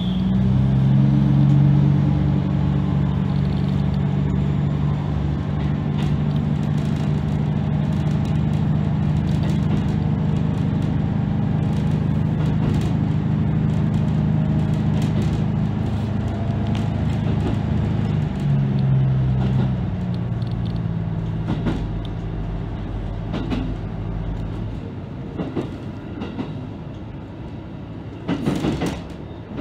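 Diesel railcar's engine pulling away with a steady drone that changes note about 18 seconds in, then eases off. After that the wheels click over rail joints and points, with a louder cluster of clicks near the end.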